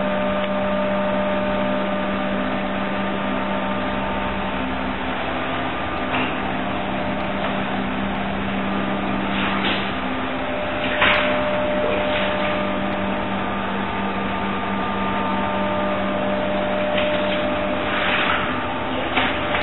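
A steady mechanical hum over an even hiss, as from a motor or fan running, with a few soft scrapes or knocks now and then.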